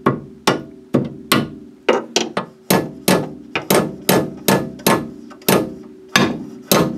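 Steady run of hammer blows, about three a second, on the steel guide pin of a Vega front disc brake caliper, driving the pin out. Each strike is a sharp metal-on-metal hit with a short ring.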